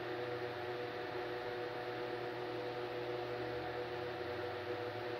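Steady background hum of several even tones over a faint hiss, unchanging throughout: room tone with a running appliance or fan.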